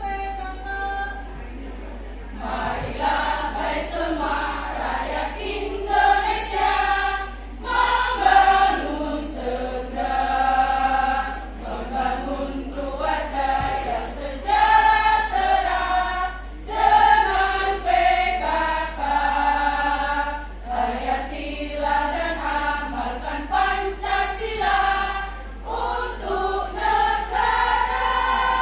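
Women's choir singing in harmony, in phrases of a few seconds with brief gaps between them.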